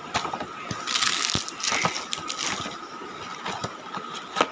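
Crinkly packaging being handled and crumpled: irregular crackling with scattered sharp clicks, heaviest about a second in.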